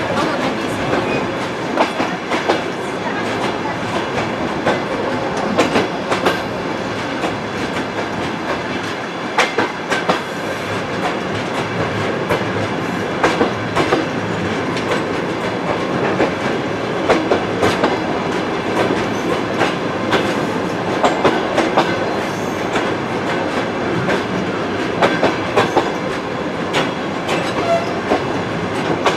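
Train wheels rolling along the track: a steady rumble broken by repeated clickety-clack as the wheels cross rail joints.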